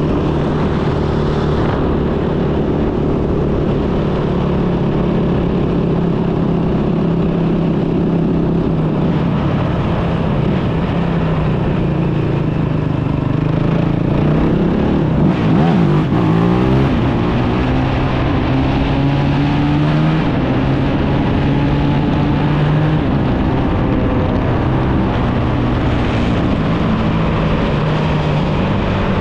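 Kawasaki KFX450R quad's single-cylinder four-stroke engine running as it is ridden, mostly steady at low revs, with the revs rising and falling briefly about halfway through.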